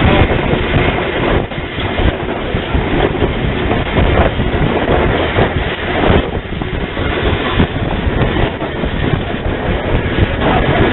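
0-8-0 tank steam locomotive running along the track, heard from its cab: a steady, loud din of the moving engine with wind on the microphone.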